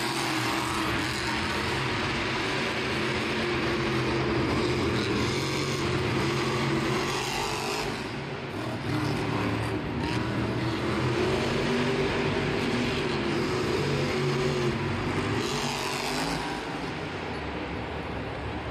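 Monster truck supercharged V8 engine running hard and revving, its pitch rising and falling, with brief drops around eight and ten seconds in as the throttle comes off.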